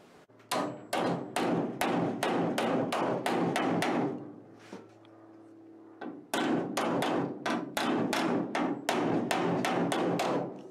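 Hammer striking a bent metal piece at the front edge of a Model A's steel roof to knock it back into shape. The blows come in two quick runs of about three strikes a second, with a pause of about two seconds in between.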